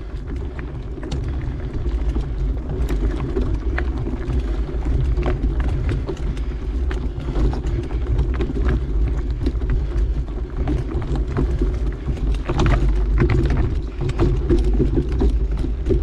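Mountain bike riding on a dirt trail: a steady low rumble of tyre and wind noise, with frequent sharp clicks and rattles from the bike over rough ground.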